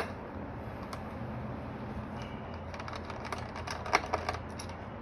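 Small clicks and taps of a screwdriver and tiny screws being handled during a repair. There is a sharp click right at the start, a single tick about a second in, and a quick run of clicks between about three and four and a half seconds.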